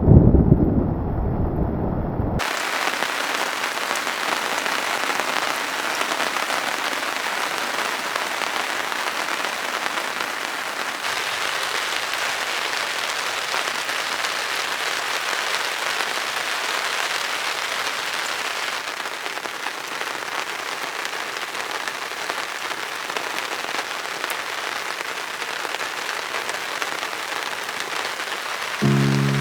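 Rain falling steadily during a thunderstorm, opening with a low rumble of thunder that dies away about two seconds in.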